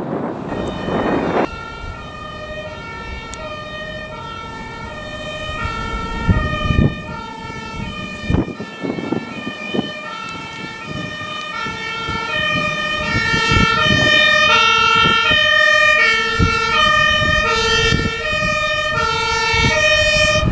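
Two-tone sirens of German fire engines on an emergency run, several horns sounding at once out of step with each other, growing louder about halfway through as the vehicles come closer, over engine and road noise.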